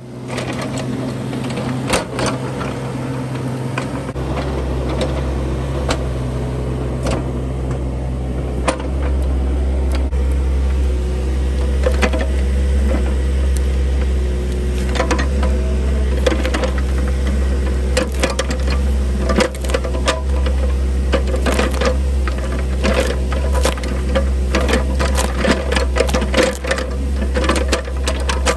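Small mini excavator's diesel engine running steadily, its low note growing louder about four seconds in, with frequent sharp clanks and knocks from the machine at work, thickest in the second half.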